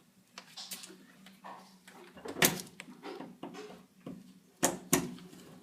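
Clicks and knocks of a charger plug being handled and pushed into a wall socket, the loudest about two and a half seconds in and two sharp clicks near the end, over a steady low hum.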